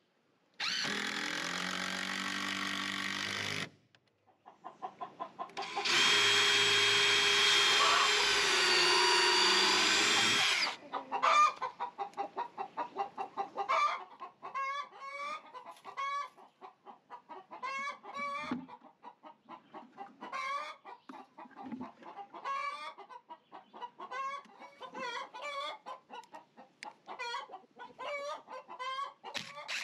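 Cordless drill driving screws into wood, in two runs: about three seconds near the start, then a louder run of about five seconds. After that, chickens cluck over and over.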